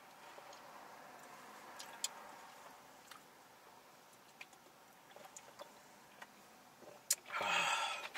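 Faint gulping and small clicks of two people drinking from plastic bottles of soda and water. A sharp click and then a brief, louder burst of noise come near the end.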